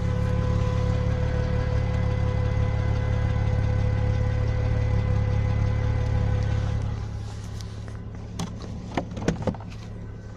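Audi A6 C4's electric fuel pump humming loudly and steadily, a sign of a failing pump that is only two days old. The hum drops away about seven seconds in, and a few sharp clicks follow.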